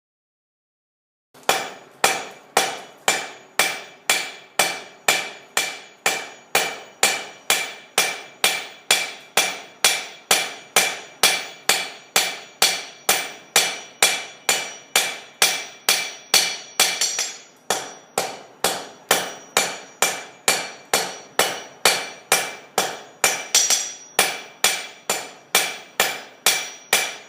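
Blacksmith's hammer striking hot steel on an anvil in a steady rhythm of about two blows a second, each blow ringing, starting about a second and a half in: the steel is being forged out into tapered leaves.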